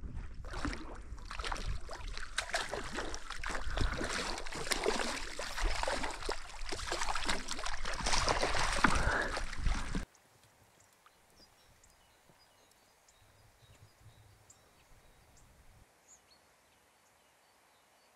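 Water sloshing and splashing against a fishing raft as it moves across choppy lake water, with a heavy low rumble of wind on the microphone. About ten seconds in it cuts off suddenly to a faint hiss with a few small ticks.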